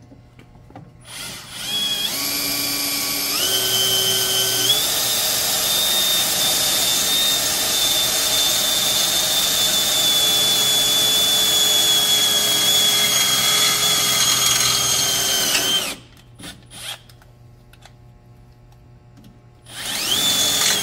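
Power drill with a 3/16-inch bit drilling a hole. Its whine climbs in pitch in a few steps as it speeds up, runs steady, and stops about sixteen seconds in. A few short clicks follow, and the drill starts again near the end.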